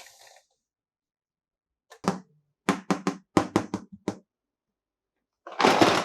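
Hard plastic toy pieces tapped and clicked together, about eight quick knocks in a row. Near the end comes a short burst of plastic rustling.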